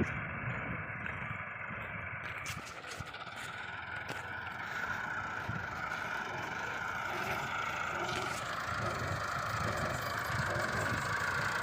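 A machine's engine running steadily, with some clatter and rattling over it, slowly getting a little louder.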